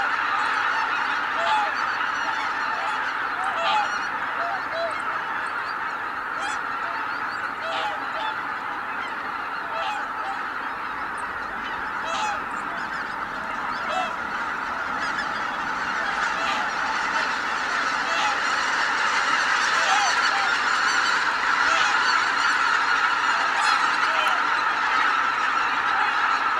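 A large flock of greater white-fronted geese in flight, calling in a dense, continuous chorus of honks. The chorus swells louder in the second half.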